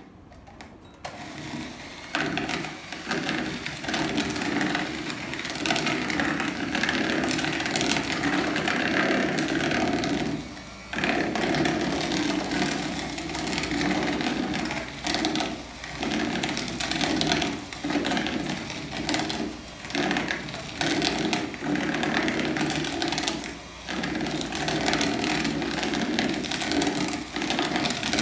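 Electric hand mixer running, its beaters whisking cake batter in a bowl. The motor starts about a second in and keeps going, with several brief dips in the second half.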